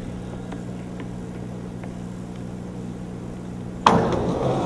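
A steady low hum with a few faint clicks, then about four seconds in a sudden loud rumble as skateboard wheels hit and roll down the sloping steel arch of a bridge.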